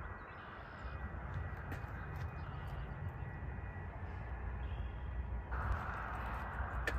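Crows cawing a few times over a steady low rumble of distant traffic and an approaching train, which grows slightly louder toward the end.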